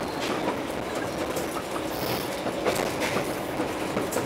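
Argo Parahyangan passenger train running at speed, heard from inside a carriage: a steady rumble of wheels on rails, with a few sharp clacks as the wheels cross rail joints.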